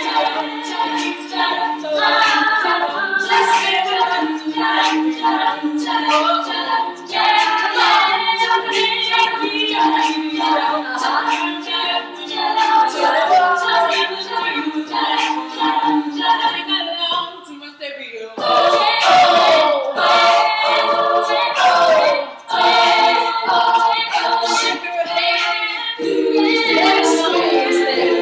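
All-female a cappella group singing a song in parts, with low voices holding a sustained backing line under a moving lead melody. The singing breaks off briefly about two-thirds of the way through, then comes back in full.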